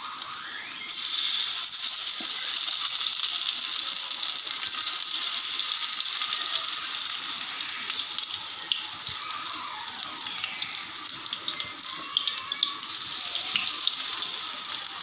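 Marinated chicken drumsticks sizzling in hot oil in a nonstick frying pan. The sizzle jumps louder about a second in as another piece goes into the oil, and swells again near the end.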